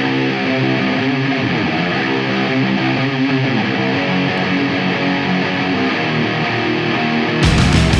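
Stoner rock song opening on an electric guitar riff played alone, strummed with some distortion. Near the end the rest of the band comes in with heavy bass and drums, and the music gets louder.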